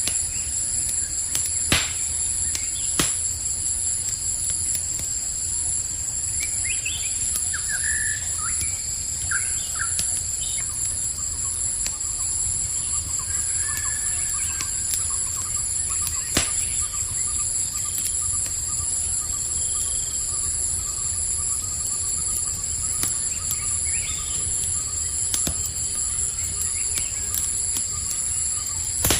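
Campfire crackling, with a few sharp pops, over a steady high chorus of crickets; a few short bird chirps come in about a quarter of the way through.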